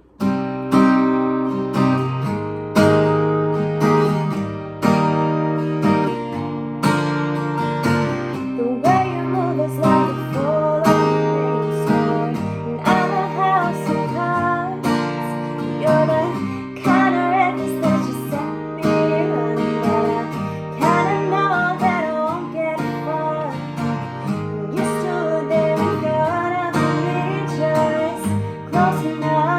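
Acoustic guitar strummed in a steady rhythm, with a singing voice coming in over it about nine seconds in.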